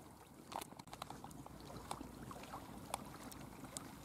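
Quiet campfire crackling: a few scattered sharp pops and ticks from the burning wood over a faint steady outdoor background.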